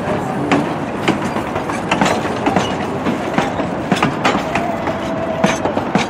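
Narrow-gauge railroad coach and caboose rolling slowly past, wheels clicking and clanking irregularly over the rail joints, with a brief wheel squeal just after five seconds in.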